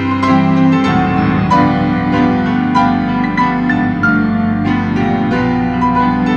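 Organ and piano playing a Christmas piece together: held organ chords under struck piano notes.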